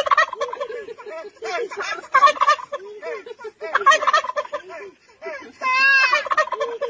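White domestic turkey gobbling repeatedly, in several loud warbling bouts. About six seconds in comes a higher, drawn-out squeal that wavers in pitch.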